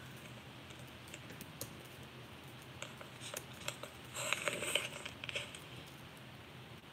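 Quiet room tone with faint scattered clicks and a short stretch of rustling a little after four seconds in.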